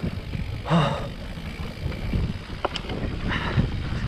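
Mountain bike being ridden on a dirt trail: a steady low wind rumble on the microphone, with scattered knocks and rattles from the bike over the ground.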